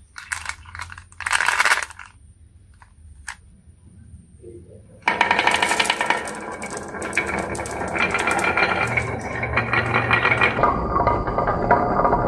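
Marbles clacking and rolling down a wooden HABA marble run: a few short clacks at first, then from about five seconds in a loud, dense clatter of many marbles rolling and knocking together.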